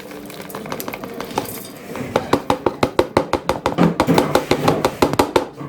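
Hard chunks of dried ginger and lesser galangal dropped and tipped into a steel mixer-grinder jar, rattling and clinking against the metal. A quick, irregular run of clinks, about five a second, grows louder about two seconds in and stops just before the end.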